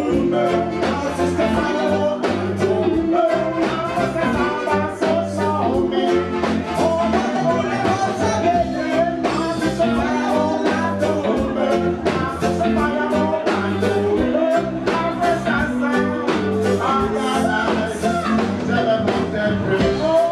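A live reggae band playing, with electric guitar, a steady drumbeat and vocals over it, heard from among the audience.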